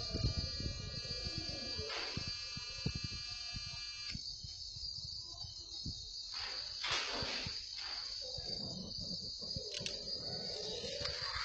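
Small DIY CNC machine running, its stepper motors giving a steady electronic whine of several held tones that cuts off abruptly about four seconds in. A single high steady whine carries on, with irregular low rumbling and light knocks underneath.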